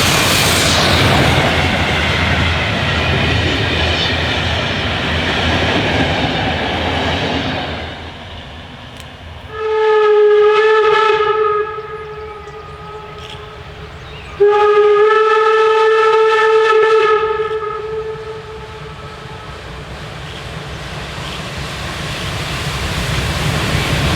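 A steam train running on the rails, its rumble dropping away about eight seconds in. Then two whistle blasts, a short one and a longer one a few seconds later. The running noise builds again near the end.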